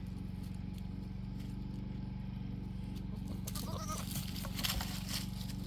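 Goats browsing and moving through brush: rustling, crackling and snapping of vegetation starting about three and a half seconds in. A steady low hum underlies it throughout.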